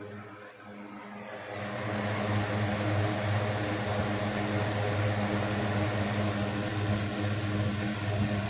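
A 1960s 16-inch Toastmaster box fan comes up to speed over the first two seconds, then runs steadily with a low motor hum under a rush of air from the blades.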